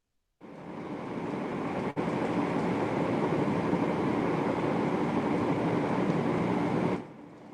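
One long, slow inhalation through the nose, heard as a steady airy rush of breath that swells over the first second or so, holds, and stops sharply near the end. It is a deep-breathing (dirgha shvasan) pranayama inhale, filling the lungs.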